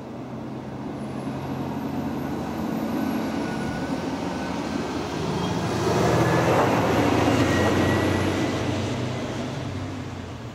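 A lorry passing on the road: its diesel engine and tyre noise swell to a peak just past the middle, then fade away.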